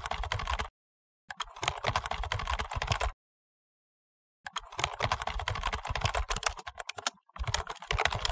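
Rapid computer-keyboard typing clicks used as a sound effect for text typing onto the screen. They come in four bursts separated by dead silence.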